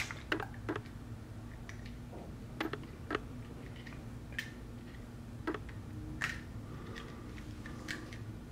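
Irregular small metallic clicks and taps from hands and a thin tool working at the exposed pick-up lever and needle-bar parts of a Singer 348 sewing machine head, over a steady low hum.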